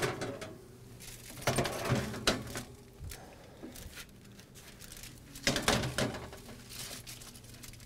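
Metal oven rack and sheet pan being handled at an open oven: a few sharp clinks and knocks about one and a half to two seconds in, and another cluster near six seconds.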